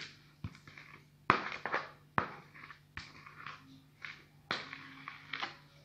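Spatula scraping thick pastry cream out of a plastic bowl, with several sharp taps of the spatula against the bowl, each followed by a short scrape.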